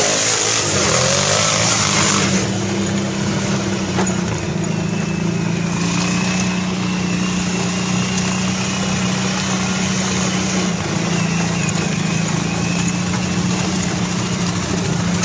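ATV engine running at a steady pace while riding a trail, holding an even note, with a rush of noise over the first two seconds.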